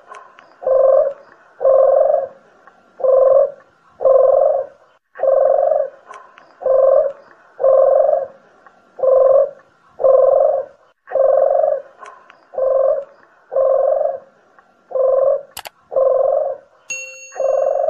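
Collared doves (deruk jawa and puter geni) cooing in a bird-lure recording: a steady series of low, repeated coos, each about half a second long, coming about once a second. A short high whistle-like tone sounds near the end.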